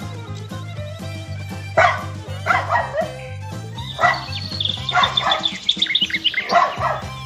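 Puppy barking and yipping over background music: a few separate barks, then from about four seconds in a quick run of yips.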